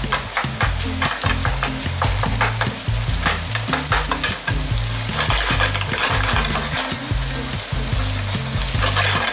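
Hot steamed rice and scrambled egg sizzling in a frying pan while a wooden spatula stirs and scrapes it, in many quick strokes against the pan.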